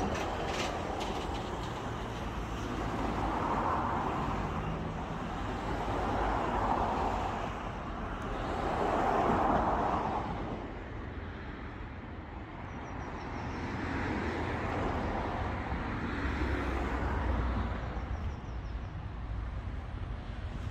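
Road traffic passing: cars going by one after another, the tyre and engine noise swelling and fading about five times over a steady low rumble.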